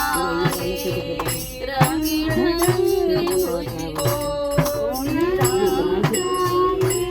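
Devotional bhajan music: singing voices over a steady held tone, with evenly spaced percussion strikes keeping the beat.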